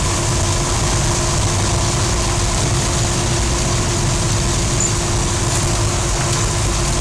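Bombardier snow coach running, heard from inside its cab: a loud, steady engine rumble with a steady hum over it.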